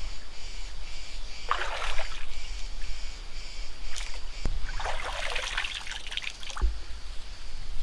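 Water splashing and trickling as hands scoop mud and water from the bottom of a shallow mud-bath pool, in two bursts: one about a second and a half in, and a longer one around five seconds in.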